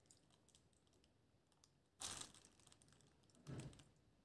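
Near silence with faint scattered clicks and two brief soft noises, one about two seconds in and a weaker one near the end, as a ladle is lifted and stirred through thick juice concentrate in a glass bowl.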